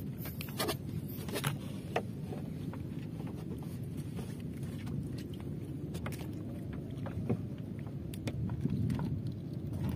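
Steady low water noise around a small outrigger fishing canoe, with a few light knocks and clicks from the boat and gear.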